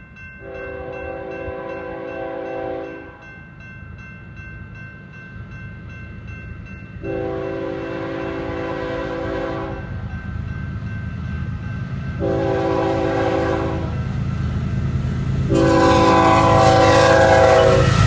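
Nathan Airchime K5HL five-chime air horn on an approaching GE locomotive sounding the grade-crossing signal: long, long, short, then a final long blast still held at the end. Under it the diesel engine rumble grows louder as the train closes in, with wheel and rail noise rising near the end.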